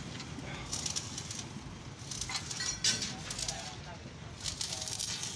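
Electric arc welding on a steel trailer frame, crackling and sizzling in several short spells that start and stop.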